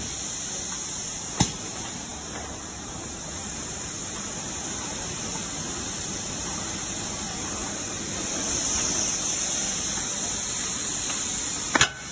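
Steady hiss from a running gasket-strip machine, swelling for a moment about eight seconds in. A sharp click sounds about a second and a half in and another near the end.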